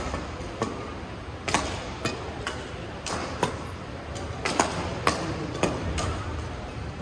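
Badminton rackets striking a shuttlecock in a fast doubles rally: a dozen or so sharp hits, irregularly spaced about half a second apart, over the steady background noise of a large sports hall.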